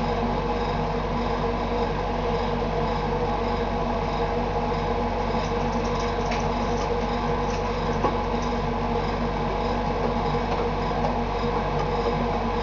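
Steady mechanical hum made of several steady low tones, with a couple of faint clicks around the middle.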